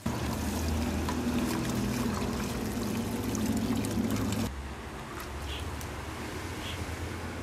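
Water trickling and splashing as a wet hank of cotton warp threads is worked in a bucket of water, wetting it to break up and wash out the starch. The sound drops to a fainter wash about four and a half seconds in.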